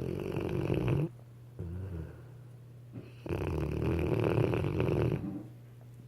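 Weimaraner dog snoring: one long snore that ends about a second in, a short, quieter breath near two seconds, then a second long snore of about two seconds starting just past three seconds.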